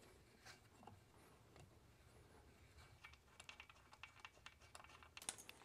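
Near silence with faint, scattered light clicks and taps from about three seconds in, ending in a quick little run of clicks, as a mountain bike's handlebar is fitted by hand onto the stem.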